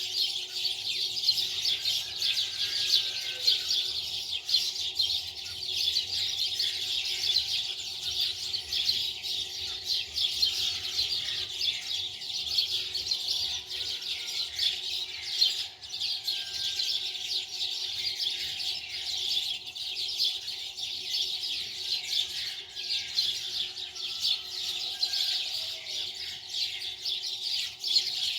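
Many small birds chirping and chattering continuously, with a faint steady hum underneath.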